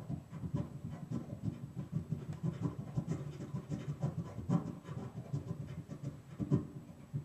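Mouth and breath noises made into a karaoke microphone held against the lips and played through the karaoke machine's speaker: an irregular stream of crackles over a low, uneven rumble.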